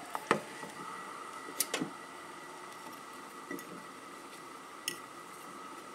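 A few light clicks and taps, the loudest near the start, as a ceramic mug of grated beeswax and pine resin is set into a saucepan of hot water and a metal spoon works in the mug, over a faint steady hum.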